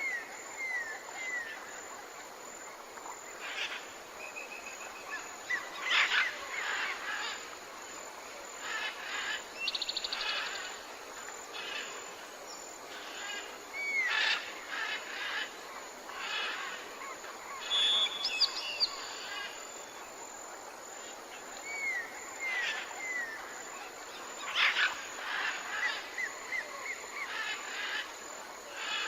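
Forest birds calling over a steady background hiss: several series of short down-slurred whistles, a few fast trills and other scattered chirps.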